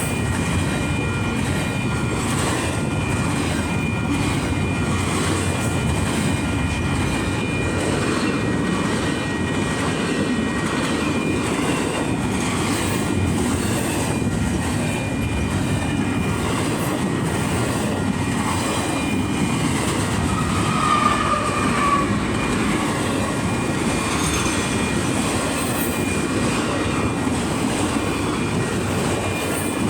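Union Pacific freight train rolling past, a steady rumble of wheels on rail with thin, steady high wheel squeal. A brief louder squeal comes about two-thirds of the way through.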